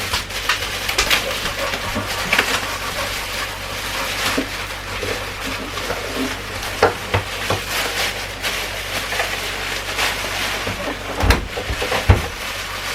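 Rustling with scattered clicks and knocks of things being handled, the loudest pair of knocks near the end.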